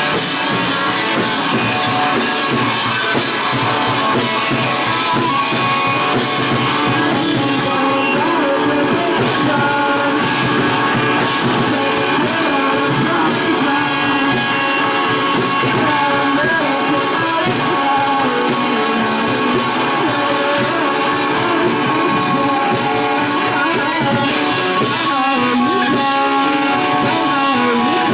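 Live rock band playing a song: electric guitar and drum kit.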